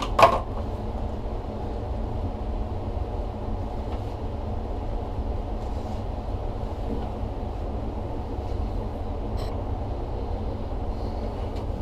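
Gas furnace blower running steadily with a low rumble of moving air, still on after the burner flame has shut off mid-cycle. A single sharp knock sounds about a quarter second in.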